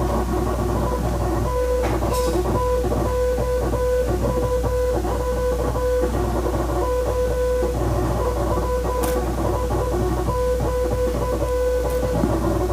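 Morse code tone beeping on and off in short and long elements at one steady pitch, over background music with plucked guitar.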